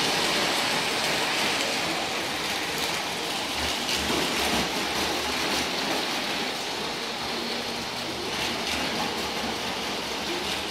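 Model electric train running around a floor layout: a steady rolling hiss and rumble of wheels on the track.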